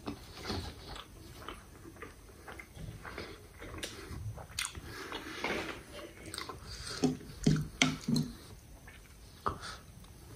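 Close-miked chewing of a mouthful of cheeseburger: irregular wet smacks and clicks of the mouth, with a cluster of sharper ones about seven to eight seconds in.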